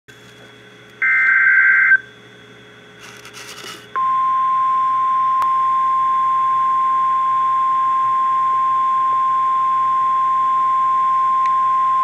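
NOAA Weather Radio receiver sounding an emergency alert: a one-second warbling digital data burst of the SAME header about a second in, a brief crackle, then from about four seconds in the steady 1050 Hz warning alarm tone, a single unbroken pure tone, which signals that a warning-level alert, here a severe thunderstorm warning, is about to be read.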